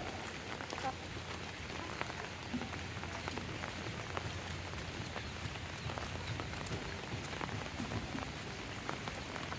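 Steady rain falling, with many separate drops ticking sharply on nearby surfaces.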